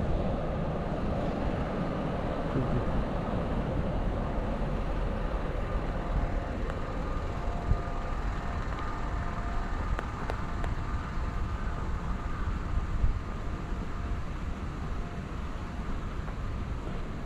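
City street traffic noise: a steady rumble of passing road vehicles. A faint held tone comes in about six seconds in, and there are a few short clicks.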